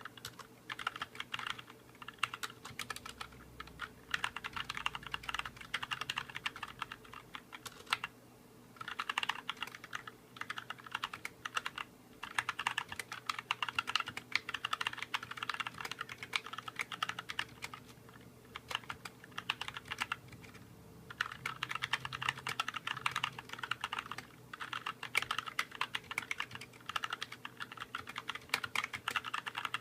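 Fast typing on a budget mechanical keyboard with Gateron switches: runs of quick key clicks broken by short pauses.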